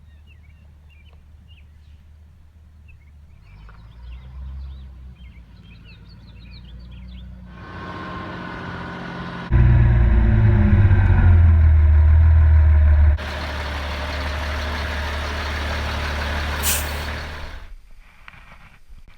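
A heavy truck engine and machinery running, getting louder in several abruptly cut segments, with the deepest, loudest rumble in the middle. Faint bird chirps are heard at the start.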